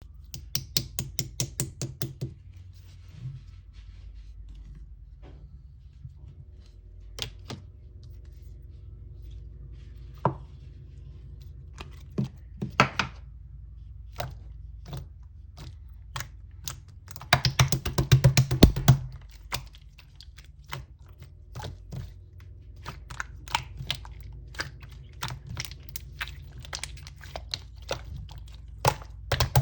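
Clear green slime being handled, giving sharp clicks and pops: quick runs of clicks at the start, about two thirds of the way through and at the very end, with single pops in between, over a low steady hum.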